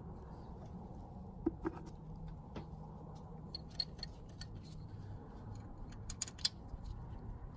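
Scattered light metallic clicks and taps of hand tools as the vehicle speed sensor's two 10 mm mounting bolts are fitted back in, with a cluster of quick clicks near the end.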